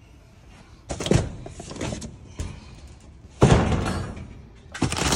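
Boxes and household items being shifted and knocked about by hand: a handful of thumps and scraping rustles, the loudest about three and a half seconds in.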